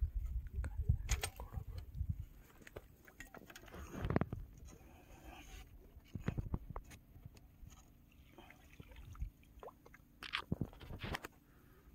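Handling noise from a freshly landed rohu being held and handled on the rocks: irregular clicks, scrapes and rustles, with a low rumble on the microphone in the first two seconds and a louder scuffle about four seconds in.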